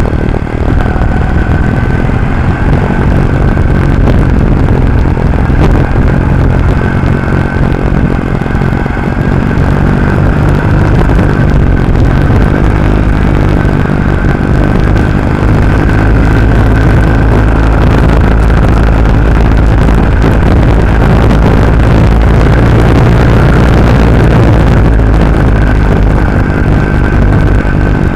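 Norton Commando's parallel-twin engine running at a steady cruise while riding, heard from an onboard camera with a dense low rumble of wind and road noise. The engine note holds fairly even, without sharp revs.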